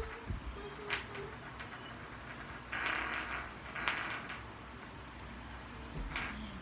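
A bottle being spun and handled on a tiled floor, giving quiet short spells of scraping and clinking: one click about a second in, two spells in the middle and one more near the end.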